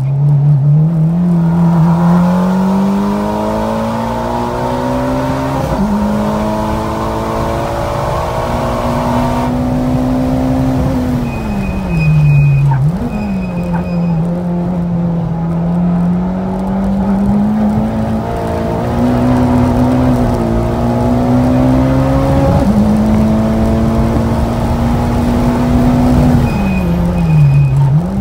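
Turbocharged 2.0-litre four-cylinder of a 2009 Mitsubishi Lancer Evolution X driven hard on track, heard from inside the cabin. The engine note climbs through the revs and drops sharply at upshifts. Twice it falls under braking, then jumps with a quick blip of revs on a downshift, once in the middle and again near the end, before pulling again.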